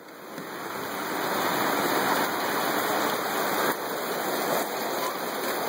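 Heavy rain pouring down. It swells over the first couple of seconds as the RV door is opened onto the storm, then holds as a steady, dense downpour.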